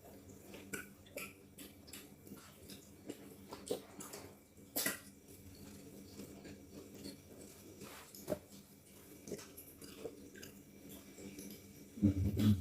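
Close mouth sounds of people eating fufu with soup: soft chewing, lip smacks and small wet clicks scattered through. A short, louder low-pitched burst comes near the end.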